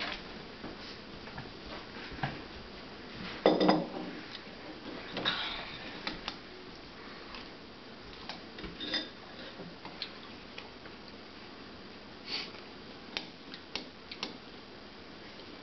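Metal spoon clinking and scraping against a ceramic cereal bowl in scattered short clicks, with a louder knock and clatter about three and a half seconds in.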